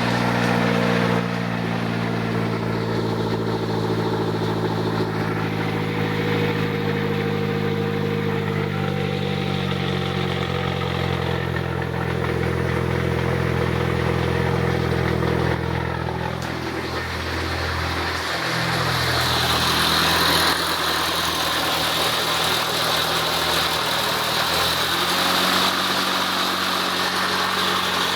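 Mitsubishi 4G63 turbocharged inline-four running with a buzzing sound, its note shifting about two-thirds of the way through. The owner suspects worn bearings or a blown T28 turbocharger.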